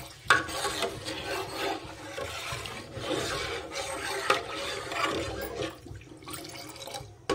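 A spoon scraping and rubbing around the inside of a cooking pot while stirring, an uneven rasping with a sharp knock about a third of a second in.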